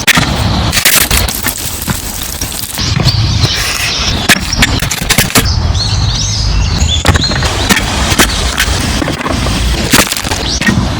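Irregular knocks and scraping on a wooden cutting board as food is cut or handled, with a few short bird chirps about halfway through.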